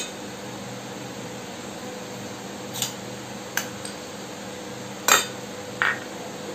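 A few light clinks and knocks of steel bowls and a spoon being handled, the loudest about five seconds in, one with a brief ring, over a steady low hum.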